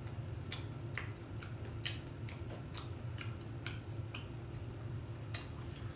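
Crunchy chewing of fried squid tempura batter: short sharp crunches at a steady pace of about two a second, over a faint steady low hum.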